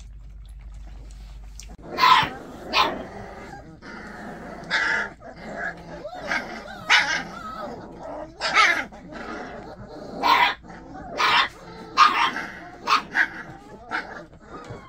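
Young puppies yipping and barking in play: short, high-pitched yips repeated more than a dozen times, starting about two seconds in.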